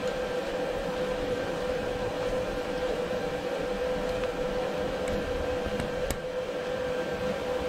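Steady workshop machine hum with a whine held on one pitch, and a couple of faint metallic clicks about five and six seconds in as a tap is handled in a tap wrench.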